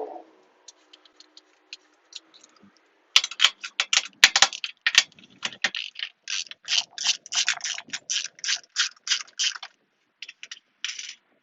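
Hand ratchet wrench clicking in quick strokes, about four clicks a second, as bolts are backed out; it starts about three seconds in and stops near the end after a few last clicks.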